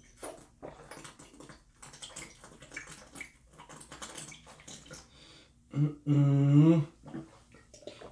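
Gulping and swallowing as drinks are downed from a wine glass and a bottle, with many small wet clicks. About six seconds in comes one low, steady voiced sound held for about a second.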